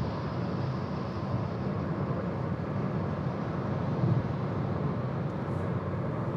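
Steady tyre and wind noise inside an electric car's cabin while cruising at highway speed, with no engine sound.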